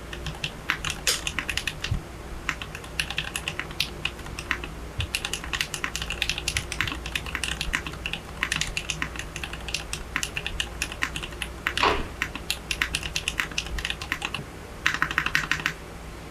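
TX Classic TKL mechanical keyboard being typed on: a steady run of clicky keystrokes, with one heavier stroke about three-quarters of the way through and faster bursts of typing near the end.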